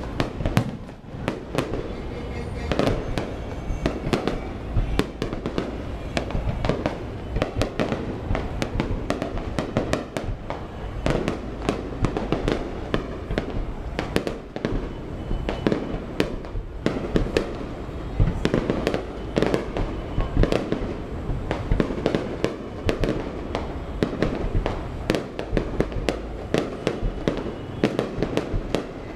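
Aerial fireworks display: a continuous barrage of shell bursts and crackling, many sharp reports in quick succession over a steady low booming.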